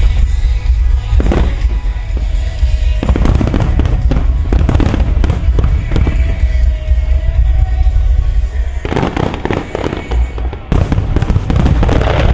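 Fireworks bursting and crackling in dense rapid clusters, about three seconds in and again about nine seconds in, over loud music with heavy bass played for a music-synchronised fireworks show.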